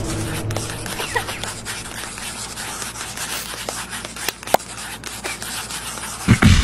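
Pencils scratching on paper with scattered light taps as students write. A short, louder low sound comes near the end.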